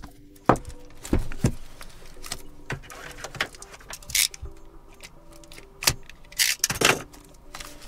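Cardboard keyboard box being handled and opened: scattered knocks and taps, with a few sliding, rustling scrapes of cardboard about four seconds in and again near the end.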